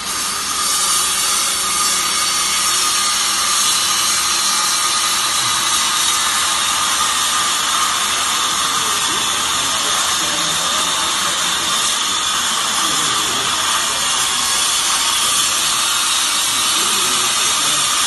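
Coir fibre baler's hydraulic power unit running steadily: a constant motor whine over a high hiss.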